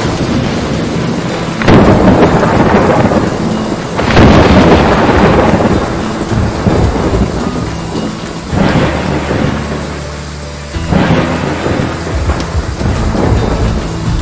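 Thunderstorm: steady rain with four rolls of thunder, each swelling suddenly and fading away over a few seconds. The first two, close together early on, are the loudest.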